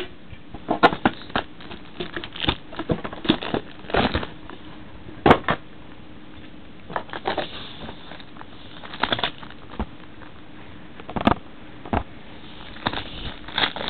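Hands opening a trading-card box and handling its contents: irregular clicks, taps and rustling of packaging.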